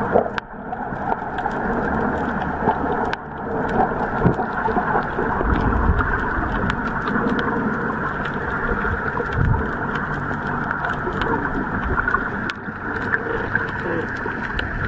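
Boat on the sea: a steady, muffled rush of water with a low hum and scattered light clicks.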